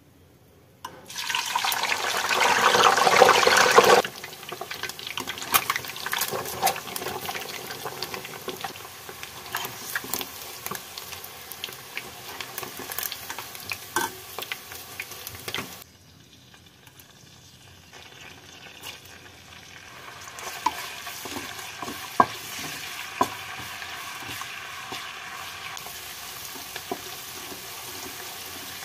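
Whole boiled eggs going into hot oil in a kadai, with a loud burst of sizzling for about three seconds, then steady frying with crackles and pops. After a short quieter stretch about halfway through, sliced onions fry in the oil with scattered sharp pops as they are stirred.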